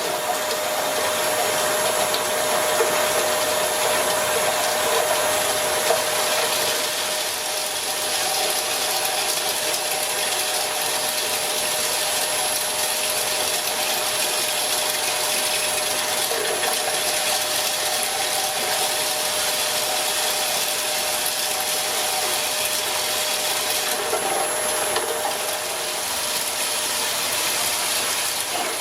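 Homemade bee-bread (perga) extraction machine running steadily: a continuous mechanical rattle over a steady motor whine.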